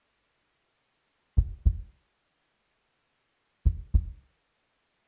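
Heartbeat sound effect: two slow double beats (lub-dub), deep thuds in pairs about two seconds apart, with silence between.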